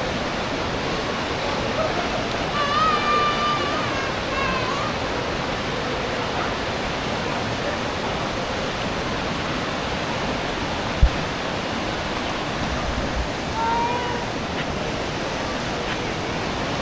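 Coquihalla River rushing through a narrow rock gorge in white-water rapids, a steady, even rush of water. A single low bump about eleven seconds in.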